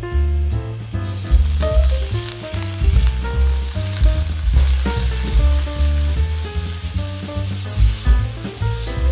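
Minced garlic sizzling in hot oil in a nonstick pan while a silicone spatula stirs it. The sizzle grows louder about a second in and flares again near the end as steam rises from the pan. Background music with a steady bass line plays underneath.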